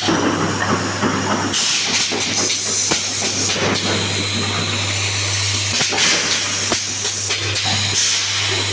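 Automatic confetti filling machine running: a steady low hum under a loud, shifting hiss, with scattered sharp clicks.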